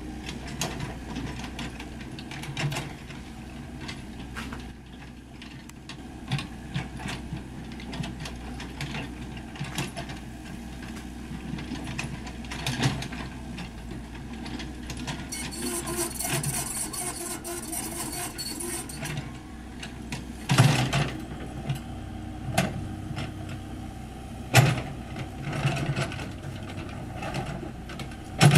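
Komatsu PC78US mini excavator working: its diesel engine runs steadily under load, with frequent clanks and knocks from the bucket and arm as it digs, and several louder clunks in the second half.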